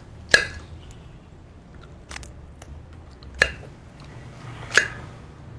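Three sharp clicks, spaced irregularly a second or more apart, with a few fainter ticks between them over a low steady background hum.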